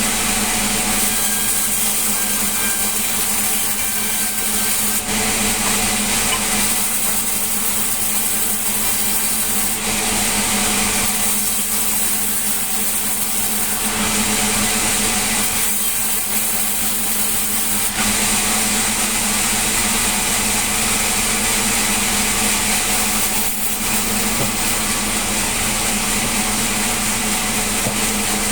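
Sawmill saw running steadily while sawing a log, with a constant low hum under it. The cutting sound shifts every couple of seconds during the first two-thirds, then evens out.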